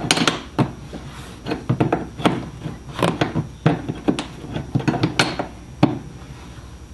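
Steel wrench clinking and knocking against a nut as it is turned in short strokes and refitted, snugging down a horn push button. Irregular sharp metallic clicks, about two or three a second, stopping about six seconds in.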